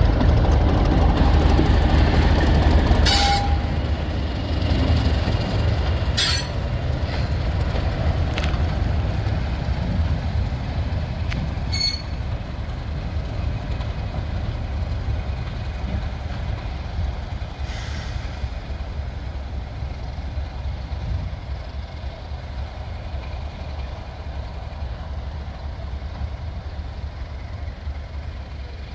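Class 31 diesel locomotive's English Electric engine running as it passes close and draws away, its rumble fading steadily. A few sharp clicks sound along the way.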